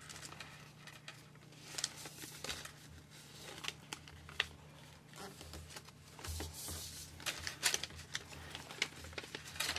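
A sheet of printer paper handled and folded by hand: irregular rustles and short scrapes as it is moved and flipped, and fingers run along the folds to crease them.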